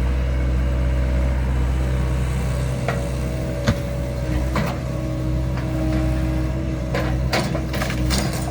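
Excavator's diesel engine running steadily while it demolishes a mobile home, with scattered sharp cracks and knocks of breaking debris, the loudest about halfway through and several more near the end.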